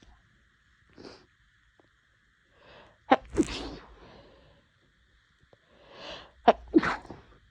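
A woman sneezing twice, about three and a half seconds apart, each a sharp double burst with a breath drawn in just before it. It is part of a sneezing fit brought on by an itchy nose.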